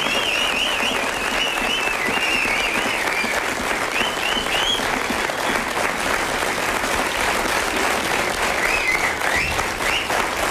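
Studio audience applauding steadily, with a few whistles in the first half and again near the end.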